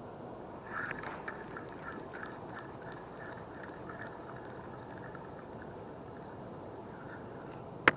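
Spinning reel being cranked: an even run of light clicks, about five a second, fading out after a few seconds. Near the end comes one sharp, loud click.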